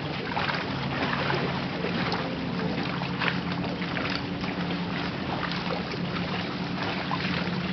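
Motorboat engine running steadily on the lake, a low hum that shifts up in pitch about two seconds in, over wind noise on the microphone.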